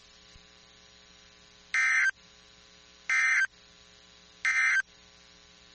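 Three short bursts of Emergency Alert System digital data tones, the end-of-message code that closes the alert, each about a third of a second long and roughly a second and a half apart, over a faint steady hum.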